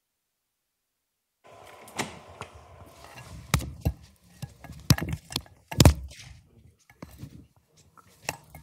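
Handling noise at a lectern: a run of irregular knocks and thumps, picked up by the microphone as equipment is set up, the loudest a little under six seconds in, over a faint room hiss. The sound begins about a second and a half in.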